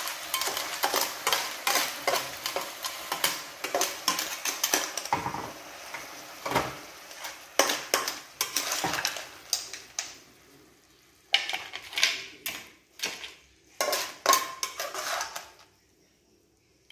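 Metal spatula scraping and clinking against a non-stick frying pan as clams are stir-fried in tamarind sauce, with a light sizzle. From about ten seconds in come a few separate knocks of a metal ladle on the pan as the clams are spooned out.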